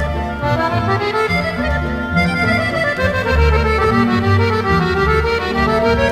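Background music led by an accordion, playing a melody in quick runs that climb and fall over a steady bass line.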